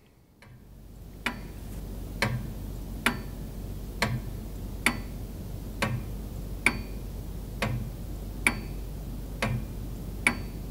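Clock ticking sound effect, about one tick a second, over a steady low background that fades in at the start. It serves as a countdown while viewers are asked to pause and study the diagram.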